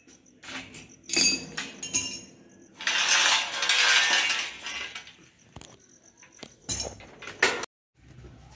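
Metal plumbing tools clinking and knocking against a concrete floor as they are handled and set down, with a louder stretch of scraping noise in the middle. The sound drops out briefly near the end.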